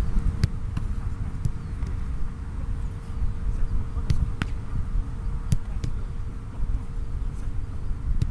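Wind rumbling on the microphone on an open field, with a faint steady hum and scattered sharp taps.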